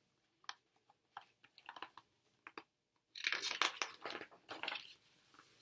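Paper rustling and crinkling as a picture book's page is handled and turned: a few light ticks first, then a longer rustle past the halfway point.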